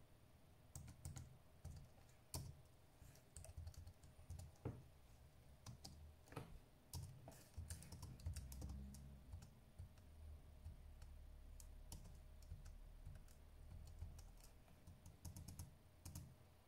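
Irregular light plastic clicks and taps on an HP 625 laptop, with soft low handling noise; there are several clusters of quick clicks.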